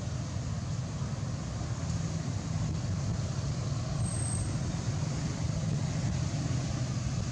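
A steady low rumble with a faint hiss above it, unchanging throughout, with no distinct animal calls or eating sounds standing out.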